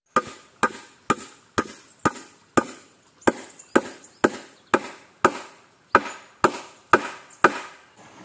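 Claw hammer driving a nail into a wooden crossbar on a timber post, about fifteen steady blows at roughly two a second.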